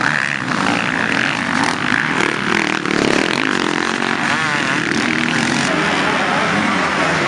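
Motocross dirt bikes racing, their engines revving up and down as riders throttle over the jumps, with a fast wavering rise and fall in pitch a little past halfway.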